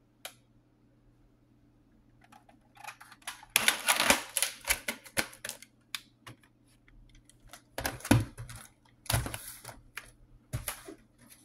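Plastic clicking and clattering of a VHS cassette and its case being handled and put away, in irregular bursts. It starts about two seconds in, is busiest around four seconds in, with more sharp knocks near eight, nine and ten seconds in.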